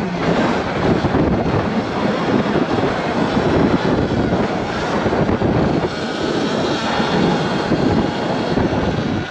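Loud, unsteady wind rush buffeting the microphone while riding a Sur-Ron electric dirt bike.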